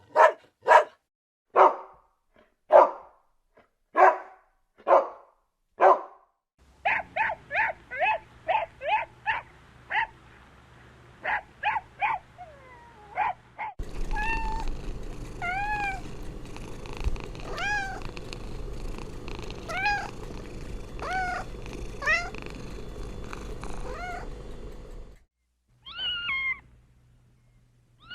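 A dog barking repeatedly, then a run of quicker, shorter calls. After a cut, a cat meowing over and over, each meow rising then falling, over a steady background hiss, with one more meow near the end.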